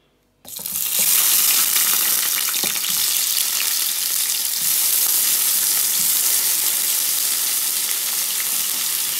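Raw peeled shrimp going into hot oil in a non-stick frying pan: a sudden loud sizzle starts about half a second in, then holds as a steady frying sizzle with small pops.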